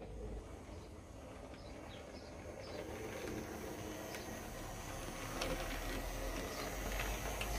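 00 gauge model tank locomotive running on its track: a small electric motor whirring, with light clicks from the wheels on the rail joints, growing louder in the second half. A few faint bird chirps in the first few seconds.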